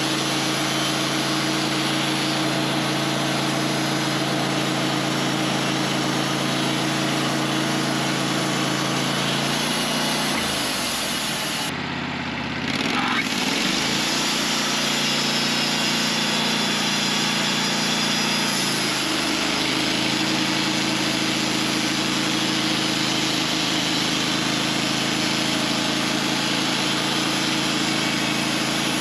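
Sawmill engine running steadily while the mill cuts thick slabs from a chestnut log. About twelve seconds in, the level dips briefly and the pitch shifts.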